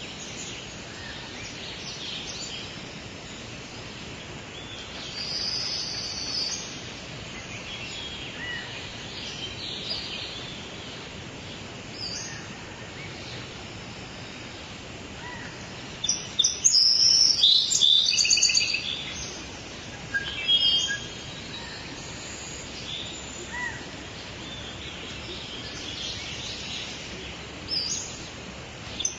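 Birds singing and chirping over a steady background hiss, with a louder burst of song about two-thirds of the way through.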